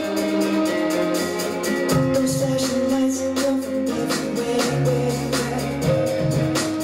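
Pop dance music with a steady beat and sustained synth tones, accompanying a dance routine.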